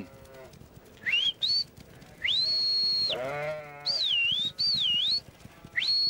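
A shepherd's whistled commands to a working border collie: a short rising two-part whistle, then a long held high whistle, then two whistles that dip down and rise again. A sheep bleats once about halfway through, between the whistles.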